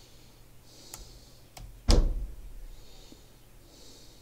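A couple of light computer-keyboard key clicks, then one loud, short thump about two seconds in that dies away quickly.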